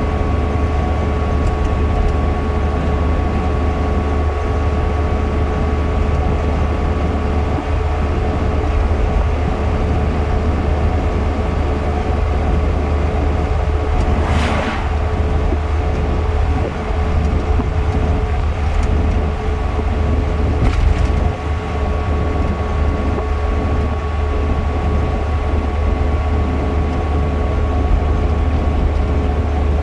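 Steady road and engine noise inside a moving car's cabin at highway speed: a low rumble with a thin steady whine. About halfway through, an oncoming truck passes with a brief whoosh.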